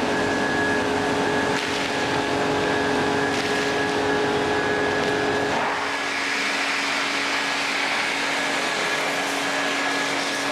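Pressure washer spraying water in a steady hiss over the constant hum of its pump motor. The pitch of the hum shifts a little about halfway through.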